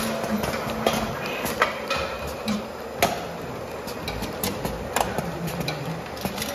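In-line can filling and seaming machine running: aluminium cans clinking along the conveyor over a steady motor hum, with sharp metallic clicks about every two seconds.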